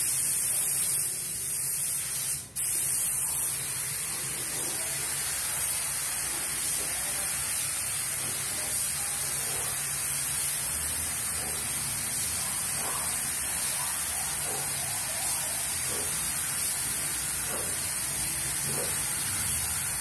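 Compressed-air paint spray gun hissing steadily as it sprays paint onto a car body.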